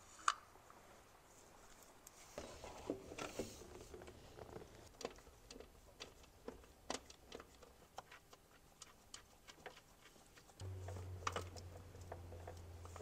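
Faint, irregular clicks and taps of gloved hands handling parts and fittings while reassembling a car's engine bay. A low steady hum comes in near the end.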